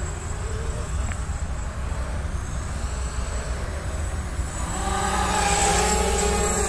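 Whine of a Grasshopper 300 hexacopter's six 1806 brushless motors and propellers, growing louder from about halfway through as it comes closer, over a steady low rumble.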